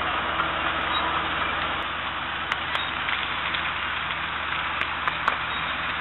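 Vehicle engine running steadily under a dense crackling hiss, with a few faint clicks.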